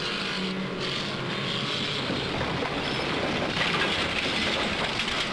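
Engines of several old saloon cars running together in a stock car race: a dense, steady vehicle noise that gets a little louder after the middle.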